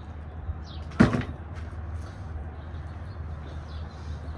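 A single sharp wooden knock about a second in, as a plywood platform section framed with lumber sides is set down on a folding sawhorse workbench.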